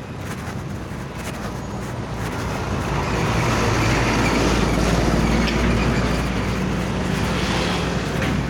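Motor vehicle traffic noise, swelling louder from about two seconds in as a vehicle comes close.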